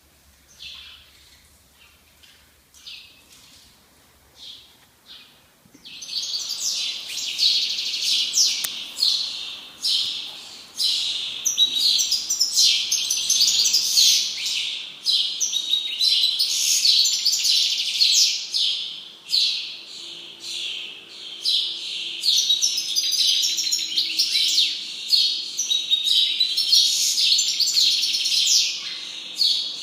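Scattered faint bird chirps, then about six seconds in a loud, dense chorus of many small birds chirping starts suddenly and carries on.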